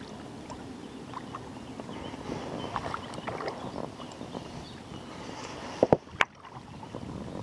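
Water splashing and lapping around a small inflatable boat while a hooked carp thrashes in the weeds ahead. About six seconds in there are three sharp knocks.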